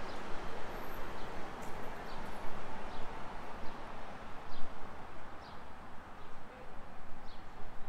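Outdoor street ambience: a steady wash of background noise from traffic and air, with a bird giving short, high chirps about once a second.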